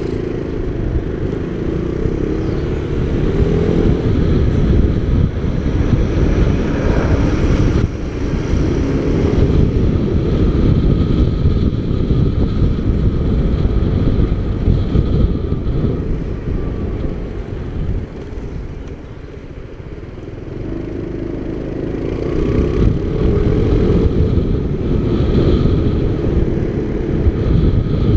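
Motorcycle engine running while riding along a street, its pitch rising and falling with the throttle. It eases off and goes quieter about two-thirds of the way in, then picks up again.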